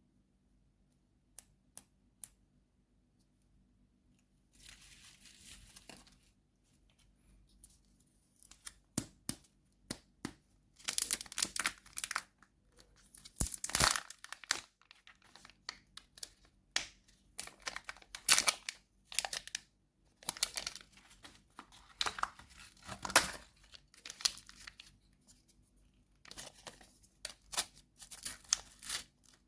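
Candy wrapper packaging being torn open and crinkled in repeated bursts, after a few sharp clicks near the start.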